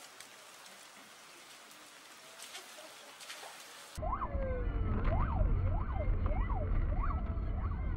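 After a faint hiss, a police car siren starts suddenly about halfway through, sweeping rapidly up and down about twice a second. Under it is a steady low rumble of a car driving on a wet road, heard from inside the car.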